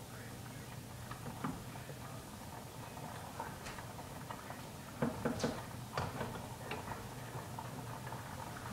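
A long spoon stirring pasta in a pot on the stove, knocking and clinking against the pot now and then, with a cluster of knocks about five seconds in. A low steady hum runs underneath.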